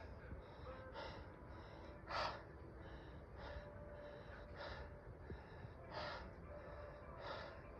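A hiker breathing hard close to the microphone, one breath puff about every second and a quarter.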